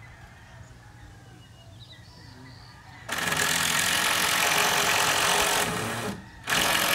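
A power tool starts about three seconds in and runs loudly in two long bursts, with a brief stop just after six seconds, while shed framing is being fastened.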